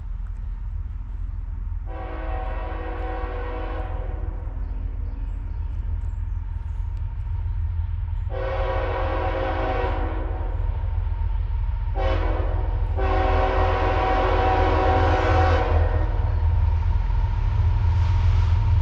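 Multi-chime air horn of an approaching CSX freight locomotive sounding the grade-crossing signal: two long blasts, one short, and one long. Under the horn is a low rumble of the train that grows louder as it nears.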